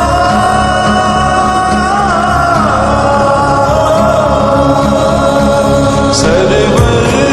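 A naat, an Islamic devotional song, sung in long held notes that waver and glide over a steady backing. The backing changes about six seconds in.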